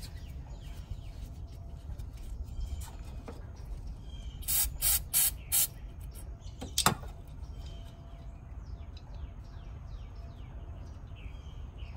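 Aerosol can of brake cleaner sprayed in four short bursts about four and a half seconds in, then a single sharp snap about a second later as the can's spray top breaks off.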